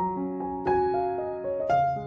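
Background instrumental music: notes struck and left to ring over held lower notes.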